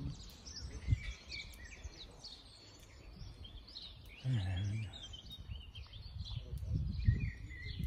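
Small songbirds chirping and singing, over the low, irregular crunching of a horse munching hay from a tyre feeder.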